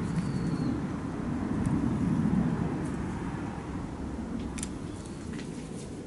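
A small engine running steadily as a low rumble, with faint bird chirps.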